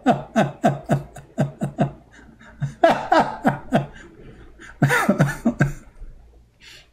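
A man laughing in quick runs of short 'ha' syllables, each dropping in pitch, in three bouts with brief pauses between.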